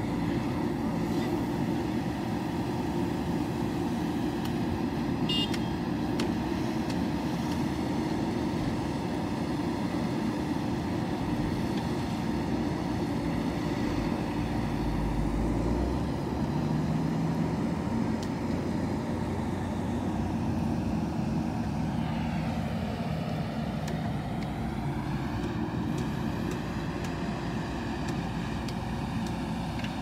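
JCB 3DX backhoe loader's diesel engine running steadily under load as the backhoe arm digs soil and swings it to load a tipper truck, its note shifting in pitch a few times late on.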